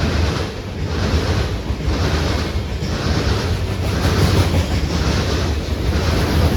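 Train passing close by, a loud continuous rumble with a regular pulsing about once a second as the cars roll past, with wind on the microphone.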